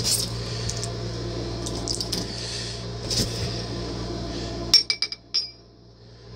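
Packing being handled: rustling and small knocks of foam and cardboard, with a quick cluster of metallic clinks about five seconds in from the bag of nuts and screws. A steady low hum runs underneath and cuts out at the same moment.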